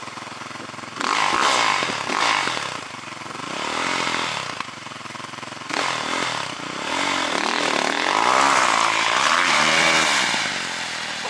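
Snow bike (a dirt bike fitted with a ski and track) engine revving in repeated surges, its pitch rising and falling with the throttle; the longest and loudest surge runs from about seven seconds to near the end.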